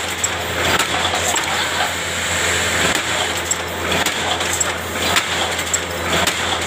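Factory production-line machinery running: a steady low hum and a haze of mechanical noise, with irregular sharp clicks and knocks.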